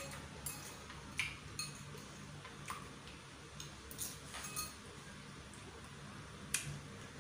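Metal spoon clinking and scraping against a ceramic bowl as the nearly empty bowl is scraped out, a scattered series of short, sharp clinks about a second apart.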